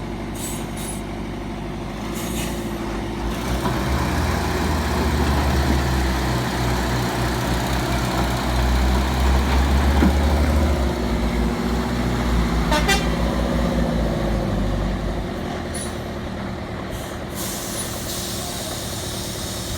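Heavy truck engine running under load. Its deep note grows louder over the first few seconds, peaks about halfway through, then eases off, with a few short hisses near the start and the end.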